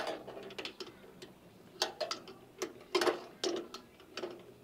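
A 13 mm spanner tightening a nut: irregular groups of sharp metal clicks, some in quick ratchet-like runs, as the spanner is worked round the nut.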